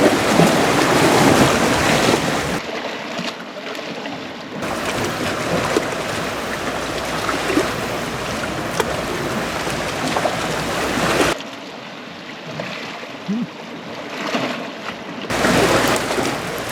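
Sea waves washing against a rocky shore with wind buffeting the microphone, a steady rush of noise that shifts abruptly in level several times where the footage is cut.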